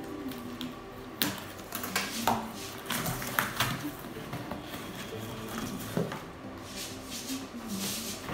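A cardboard shipping box being opened by hand: packing tape cut and torn, flaps pulled back and cardboard rustling and scraping, with irregular knocks as the box is handled.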